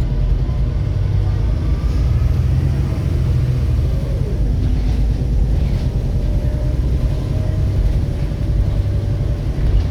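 Volvo B7RLE bus's six-cylinder diesel engine running under way with a steady low rumble, one tone briefly falling about four seconds in; the uploader says the engine is knocking.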